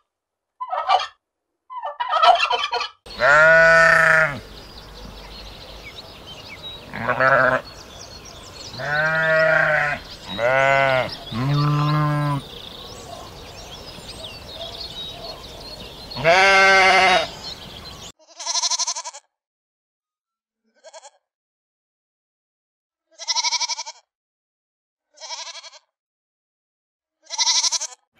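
A wild turkey gobbling in short bursts, then sheep bleating: about six long, deep, loud bleats spread over some fifteen seconds. A few short, separate calls follow near the end.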